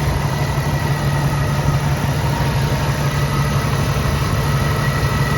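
1983 Jeep CJ7's fuel-injected 4.2 L inline-six engine idling steadily.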